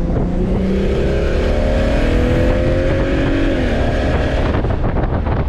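Single-turbo BMW N54 inline-six pulling under acceleration, its pitch climbing steadily for about three and a half seconds before the engine note drops away. Wind and road noise fill the rest.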